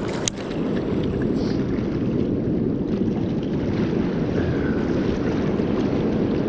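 Steady rush of a river running high with a strong current, with one sharp click a moment after the start.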